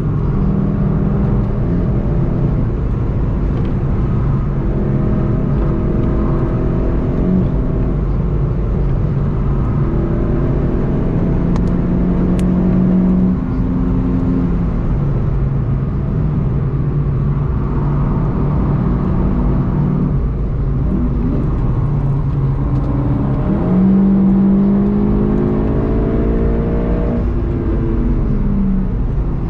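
VW Golf 7.5 GTI TCR's turbocharged 2.0-litre four-cylinder pulling hard at track speed, heard from inside the cabin over tyre and road rumble. Its pitch climbs in stretches through the gears, then drops sharply near the end as the car brakes and downshifts for a corner.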